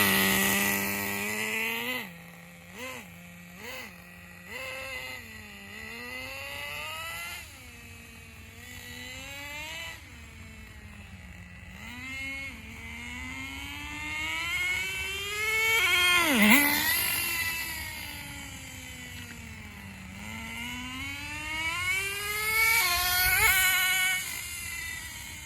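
Nitro RC car's .15 two-stroke glow engine running under throttle. Three quick blips a couple of seconds in, then long rising and falling runs in pitch as the car speeds up and slows, with a sharp drop in pitch about sixteen seconds in as it passes close by.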